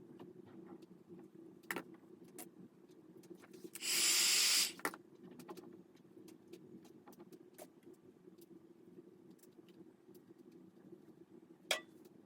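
Steady low hum with scattered light clicks and taps. A loud hiss lasts just under a second about four seconds in, and a sharp tap comes near the end.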